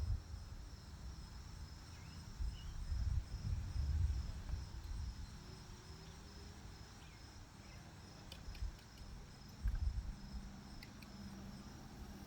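Wind buffeting the microphone in gusts while riding an electric bicycle, over a steady high trill of insects. A few light clicks come between about eight and eleven seconds in.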